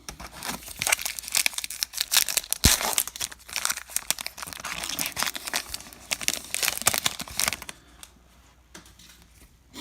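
Baseball card pack wrapper crinkling and tearing as it is opened: dense crackling for about seven and a half seconds, then only a few light rustles.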